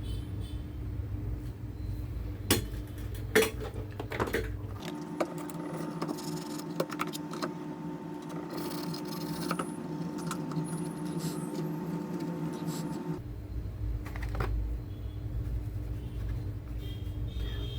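Light clicks and clinks of small objects being handled, over a steady low hum; in the middle the low hum drops out for several seconds and a steady humming tone takes its place.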